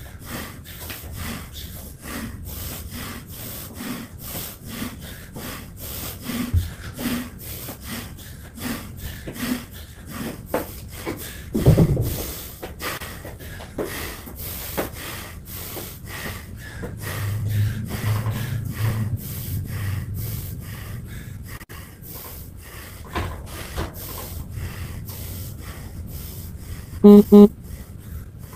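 A man breathing hard and rhythmically in strong rasping breaths, recovering between exercise rounds. There is one low thud about twelve seconds in, and near the end a gym interval timer gives two short, loud beeps.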